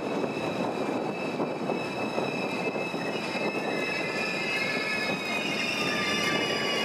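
Deutsche Bahn ICE train moving along the platform: a steady rumble of wheels on rail with high, thin squealing tones over it. In the last couple of seconds more squeal tones join and glide slightly downward.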